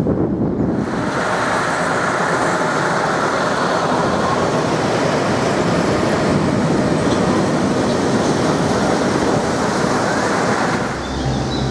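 Steady rushing rumble of a cable car gondola travelling along its cable.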